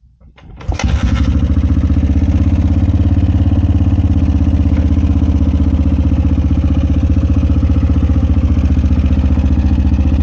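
Honda XR400's single-cylinder four-stroke engine, fed by a freshly rebuilt FCR39 pumper carburettor, firing on a cold start just under a second in after a few short clicks, then running steadily with a fast, even beat.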